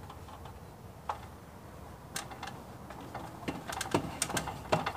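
Scattered clicks and knocks, thickening in the second half into a quick run of sharper clanks, as an aluminium stepladder is climbed and a wooden swarm trap box is carried up and bumped against it.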